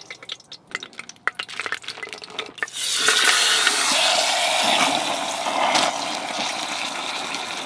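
Brisket sizzling in hot ghee in an Instant Pot on high sauté as the meat goes in to sear, a loud steady hiss that starts about three seconds in. Before it, a few light clicks and rustles.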